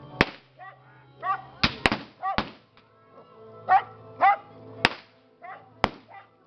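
Pistol shots: about six sharp cracks, two of them close together, with a dog barking in short yaps between the shots.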